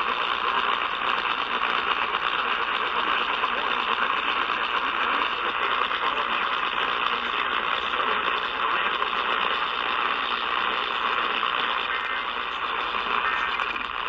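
Steady hiss of AM radio static from a portable Eton Elite Traveler radio's speaker, tuned to 950 kHz on medium wave, with no clear programme audible.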